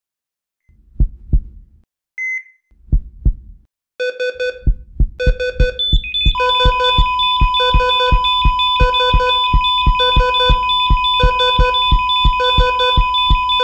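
Two pairs of low thumps with a short high beep between them, then from about four seconds in electronic synthesizer music with a steady, fast low beat and long held high tones.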